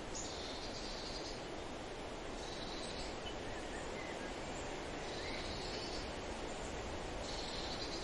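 Outdoor nature ambience: a steady hiss with short high insect trills recurring about every two seconds, and a few faint bird chirps.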